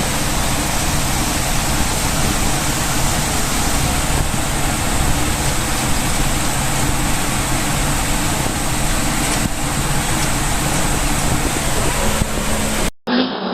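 Steady, loud rushing noise with no distinct knocks or other events; it cuts off abruptly near the end.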